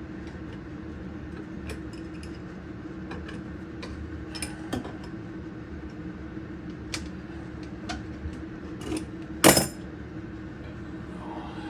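Scattered metallic clicks and clinks of hand tools working on the old faucet's mounting nuts and fittings under a bathroom sink, with one louder clank late on. A steady low hum runs underneath.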